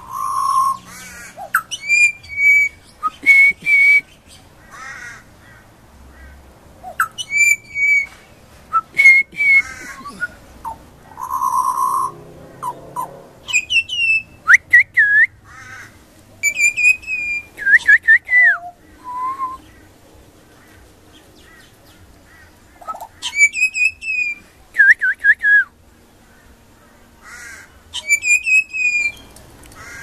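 Juvenile pied butcherbird singing: phrases of clear, fluting whistled notes that bend and sweep in pitch, separated by pauses of a second or more, with a few harsher, scratchier notes mixed in.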